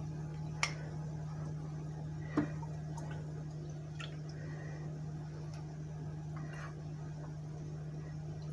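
A metal ladle clinking a few times against a ceramic ramekin as creamy sauce is spooned in, with soft wet liquid sounds; the loudest clink comes about two and a half seconds in, over a steady low hum.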